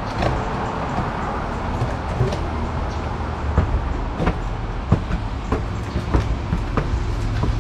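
Footsteps going down outdoor stairs and along a walkway, a sharp knock about every half second in the second half, over a steady low rumble.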